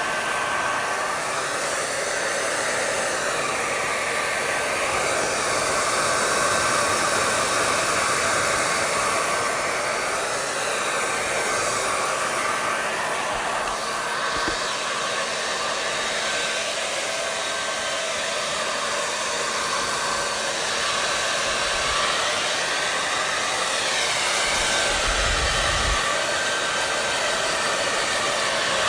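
Hair dryer blowing steadily: a continuous rushing of air with a faint, steady whine from the motor.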